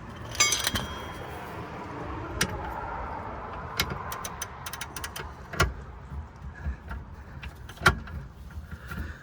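Metal clinks and sharp clicks of a wrench with a 19 mm socket being fitted to and worked on a rear shock absorber bolt, with a brief ringing metallic clatter about half a second in.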